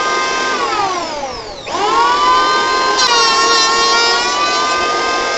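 Bosch GHO 6500 electric hand planer's motor whining at full speed, then winding down in pitch for about a second before it is switched back on and spins straight up again. About three seconds in its pitch dips slightly for about a second under load, as the blades cut into the wood, then steadies.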